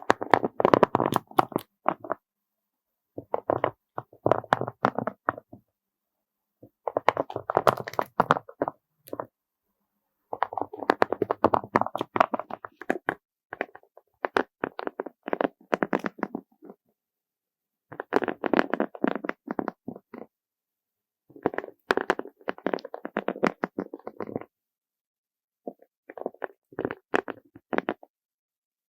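Many small beads packed on an ASMR trigger plate, clattering softly (kotokoto) as they are moved, in a series of bursts of dense little clicks a few seconds long with short pauses between.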